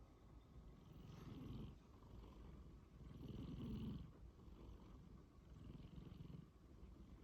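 A sleeping domestic cat snoring faintly: three fluttering breaths about two seconds apart.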